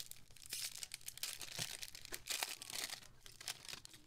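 Foil wrapper of a Topps Tier One trading-card pack being torn open and crinkled by hand: an irregular, crackling rustle of thin foil.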